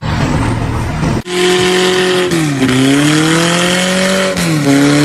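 A motor vehicle's engine running under load, its pitch dropping sharply twice and climbing back. A different, rougher rumble fills the first second before a cut.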